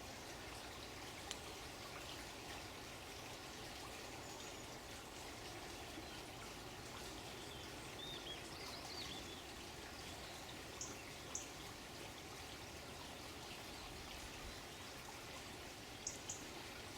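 Steady running water, with a few faint bird chirps about halfway through and brief high calls later on.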